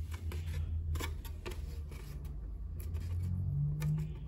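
A steady low rumble, with a hum swelling briefly near the end. Over it come a few faint taps and rubs as hands press a balsa stick into the glued joint of a styrofoam wing.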